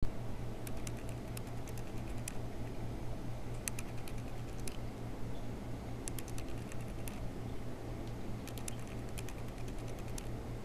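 Typing on a computer keyboard: short irregular bursts of light clicks over a steady low hum.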